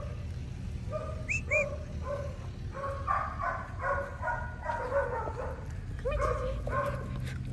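Dogs barking in short, repeated barks, several a second and thickest in the middle, with two brief high squeaky chirps about a second and a half in.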